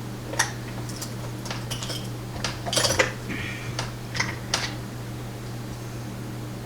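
Scattered small metal clicks and taps from handling a just-picked pin-tumbler lock and its tools, with a few close together about three seconds in. A steady low hum runs underneath.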